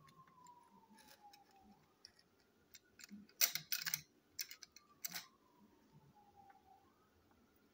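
Small screwdriver working a screw out of a plastic Percy toy engine: a few sharp clicks and scrapes of the tool against the screw and plastic, loudest about three to five seconds in.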